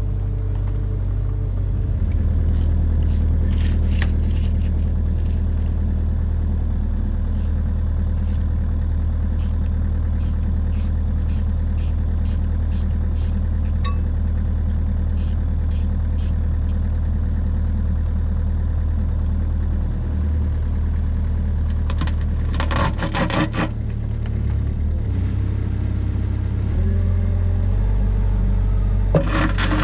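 Engine of a compact construction machine running steadily, its speed stepping up and down a few times. Light ticking runs through the first half, and two short bursts of metallic rattling clatter come, one about three-quarters of the way through and one near the end.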